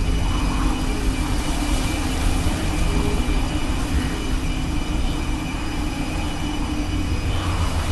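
Strong wind blowing over open grassland as a deep, continuous rumble, with a steady low hum underneath.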